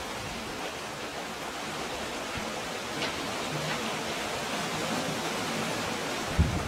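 Steady rushing of sea water washing through a rocky cove, with a low thump near the end.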